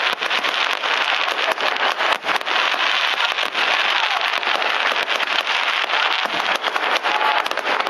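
Fireworks display with many shells bursting in quick succession and crackling stars going off, the bangs overlapping into a continuous dense crackle.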